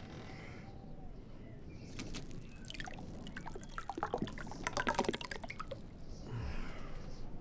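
Liquid poured from a glass bottle into a glass mug: a gurgling stream that starts about two seconds in, is loudest as the mug fills, and thins to a dribble near the end.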